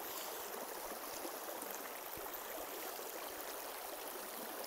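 Shallow river water rushing steadily over stones and through a gold-prospecting sluice box.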